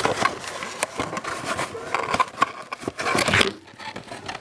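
Handling noise close to the microphone: rustling with many quick clicks and taps, dying down about three and a half seconds in.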